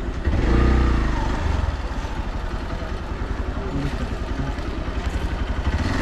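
Motorcycle engine running at low revs with a rapid, even firing rhythm. It grows louder for about a second near the start, then settles back.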